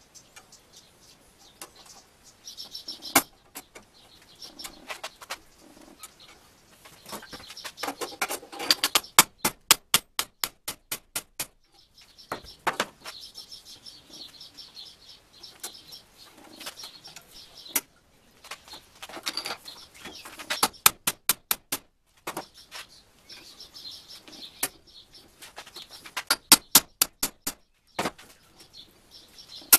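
Bundle of steel rods clicking and creaking as a hand-turned rope twister twists them together in a vise, with runs of rapid clicks. Birds chirp in the background.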